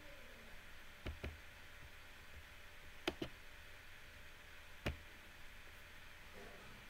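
Faint steady room hiss with a few sharp clicks: a pair about a second in, a louder pair about three seconds in, and a single click near five seconds.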